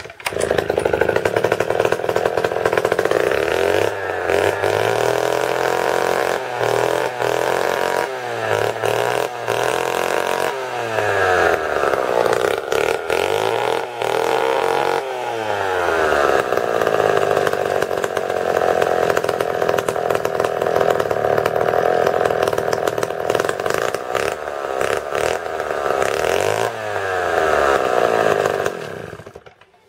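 Old Sears chainsaw's two-stroke engine running loud with the spark arrestor missing from its exhaust, revved up and down several times and held at high speed between, then shut off about a second before the end.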